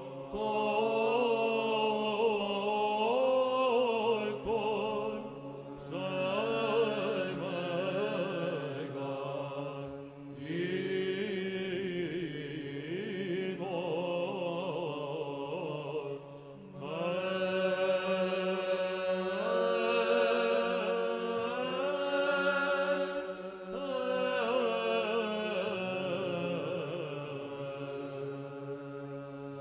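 Byzantine chant sung by male chanters: a slow, melismatic melody over a held drone (the ison), with brief breath pauses about ten and sixteen seconds in.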